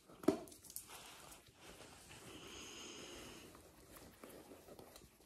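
A puppy playing: a short, sharp yip about a third of a second in, then a steadier growl lasting about a second and a half midway, among small scuffles and clicks.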